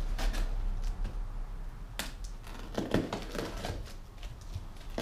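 Cardboard box being opened by hand: irregular scraping and rustling of the cardboard and packing tape, with a sharp click about two seconds in.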